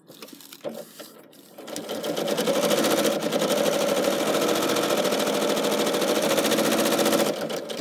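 Electric sewing machine stitching through fabric appliqué on felt. It starts up about a second and a half in, runs fast and steadily with a rapid needle rhythm, and stops shortly before the end. A few faint handling clicks come before it starts.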